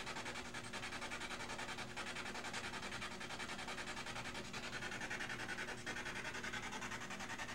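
Ghost-hunting spirit box hissing static, with a fast, even chopping as it sweeps through radio stations, and no clear voice coming through.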